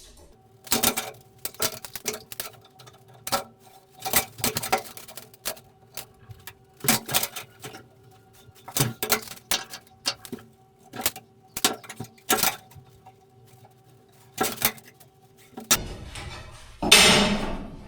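Irregular clicks and knocks of a hatch and small tools being handled on a steel plate during marking out, over a faint steady hum. A louder rustling scrape sets in near the end.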